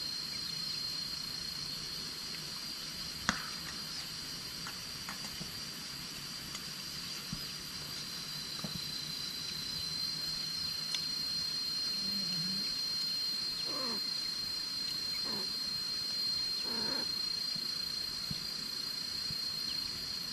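A steady, high-pitched insect chorus drones without a break. A sharp click comes about three seconds in, and three short falling calls come a little past the middle.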